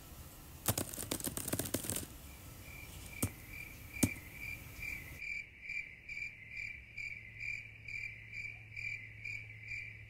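A cricket chirping in an even rhythm of about two to three chirps a second, from about two seconds in. Before that come a run of crackling clicks and then two single sharp clicks, the second and loudest about four seconds in.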